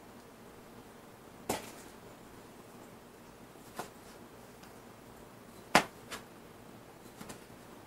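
Kitchen knife slicing a tomato, the blade knocking on the cutting board about six times at uneven intervals, the loudest knock about three-quarters of the way through.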